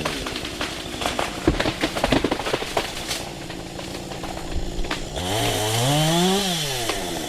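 Chainsaw engine dropped to idle, with a run of irregular sharp cracks and knocks for a few seconds. About five seconds in, the saw is revved up once and let back down to idle.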